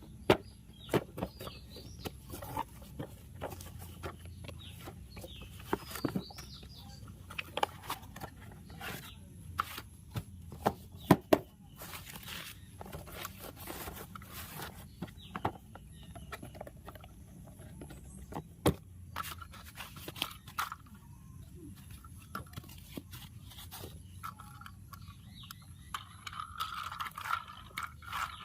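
Irregular sharp clicks, taps and scrapes of a plastic toy tractor and its cardboard packaging being handled during unboxing.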